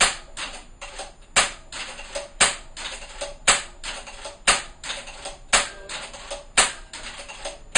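FX Impact PCP air rifle (sub-12 ft-lb) fired in quick succession, about one sharp shot a second, with lighter clicks between shots as the action is cycled.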